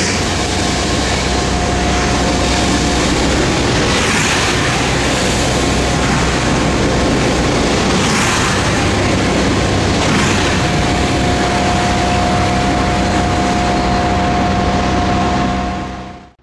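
Metro-North train running past on the tracks: a loud, steady rumble and rail noise with a held high whine in parts, cutting off sharply at the very end.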